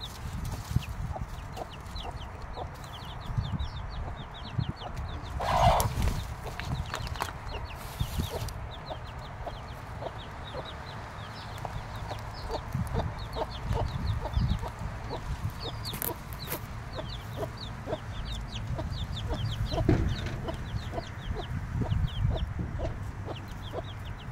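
Six-day-old chicks peeping constantly, short high falling peeps several a second, over a mother hen's low clucking. A louder burst about six seconds in.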